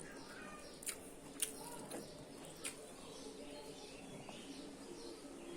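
Faint birdsong and cooing, with three short, soft clicks about one, one and a half and nearly three seconds in.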